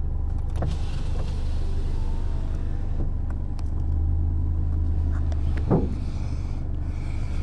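A steady low rumble, with scattered small clicks and one short thump about two-thirds of the way in.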